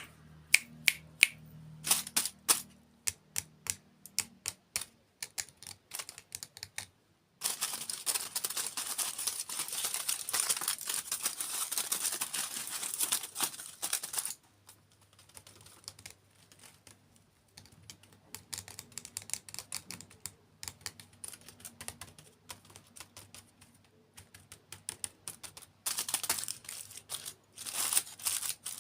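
Close-miked crisp clicks and snaps of dessert food being handled and bitten, with two longer stretches of dense crackling crunch, one about a third of the way in and a shorter one near the end.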